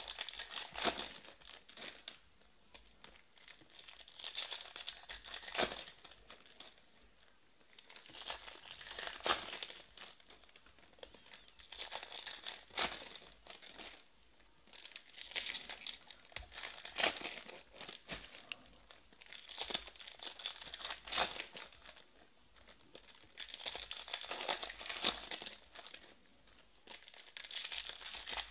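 Shiny trading-card pack wrappers crinkling and tearing as card packs are opened and the cards are handled, in bursts about every four seconds with small sharp clicks.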